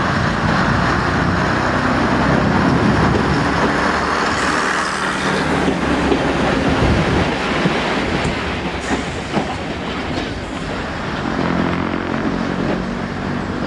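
Class 122 'Bubble Car' single diesel railcar running past at close range, its underfloor diesel engines working under power, loudest as it passes a few seconds in. A run of wheel clicks over rail joints follows as it draws away.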